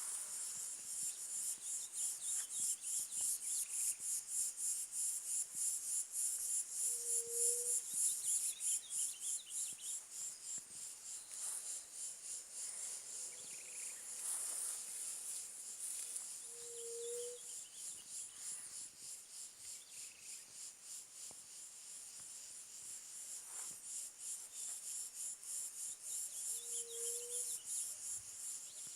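Insect chorus: a steady, high-pitched pulsing drone at about two or three pulses a second. Over it a bird gives a short, low, slightly rising whistle three times, about ten seconds apart, among faint higher chirps.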